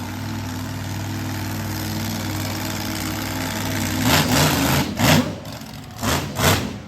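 Monster truck engine idling steadily, then revved in short, uneven bursts from about four seconds in.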